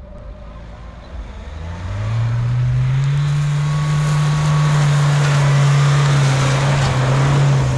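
Off-road 4x4's engine revving up about two seconds in and then held steadily at high revs under load.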